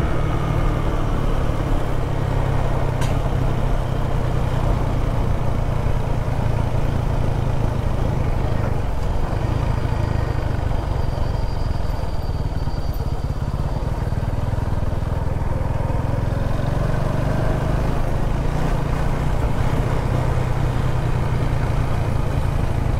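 Motorcycle engine running steadily while riding along a road, a continuous low drone with road noise over it.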